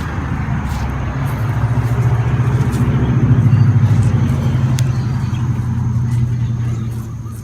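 A motor vehicle passing: a low, steady engine drone that swells to its loudest about three to four seconds in, then fades away.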